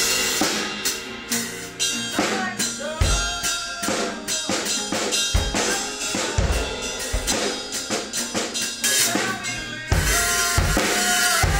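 Drums played loudly in a dense, irregular beat with heavy low bass-drum hits, along with a strummed acoustic guitar.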